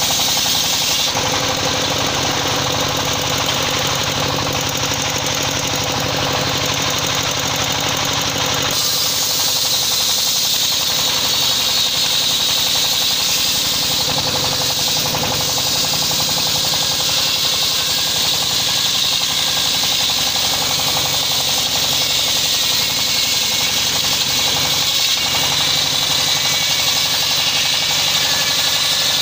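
Circular-saw sawmill running steadily while ripping a teak log lengthwise. The sound changes character about a second in and again near nine seconds as the cut goes on.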